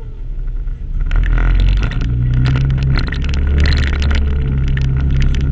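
Can-Am ATV engine running under way on a rough, muddy trail, getting louder about a second in. Frequent knocks and rattles come from the machine jolting over the ruts.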